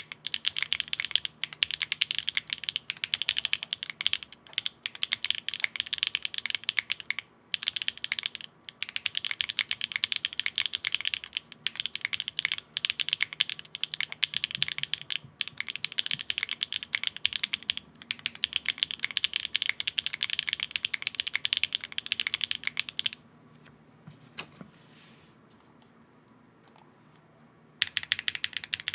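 Typing on a Neo65 mechanical keyboard with HMX Xinhai switches on a polypropylene plate with no foam: a steady, fast run of sharp keystroke clicks. It pauses about 23 seconds in, with one lone click during the pause, and resumes near the end.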